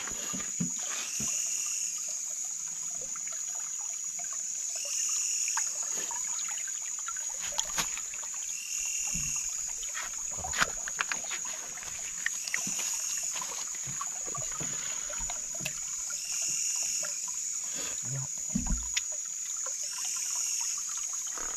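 Night-time chorus of insects: a steady high buzz, with a short call repeating about every three to four seconds. Scattered clicks, knocks and small splashes come from wading and groping among the stones of a shallow stream.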